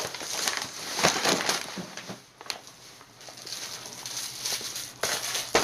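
Clear plastic bags holding frozen king crab legs and langostines rustling and crinkling as they are lifted and handled, in uneven bursts with a quieter spell in the middle.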